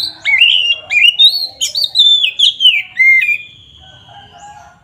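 Oriental magpie-robin (kacer) singing a loud, rapid run of varied whistled notes and sharp sweeps for about three and a half seconds. The run ends in one long, slightly falling whistle.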